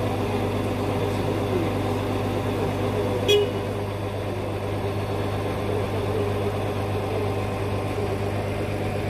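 A heavy lorry's engine runs steadily with a low hum, powering its truck-mounted hydraulic crane. About three seconds in, a brief sharp high-pitched sound cuts through once.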